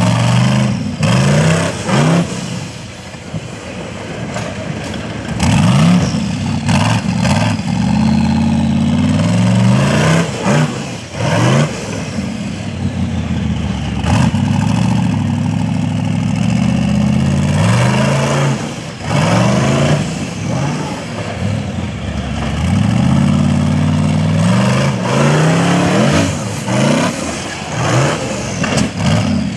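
A rock bouncer's engine revving hard in repeated bursts, its pitch climbing and dropping as the throttle is worked up the hill, with a few sharp knocks in between.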